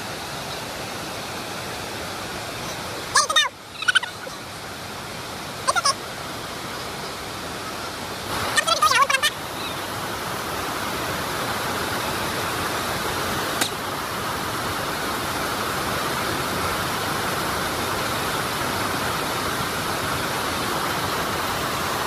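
Steady rushing of the waterfall's fast creek water, which grows louder and fuller about halfway through. Three short, wavering cries cut through it in the first half, one of them a quick run of pulses.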